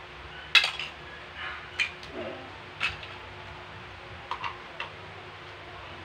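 Large plastic toy building bricks clicking and clacking as they are handled and pressed together. The sharpest click comes about half a second in, then single clicks follow, with a few close together about two-thirds of the way through.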